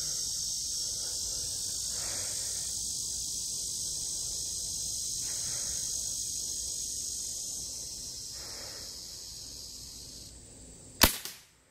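Steady high drone of insects that fades out about ten seconds in, then a single sharp crack near the end from a Daisy Powerline 880 pump pellet rifle firing.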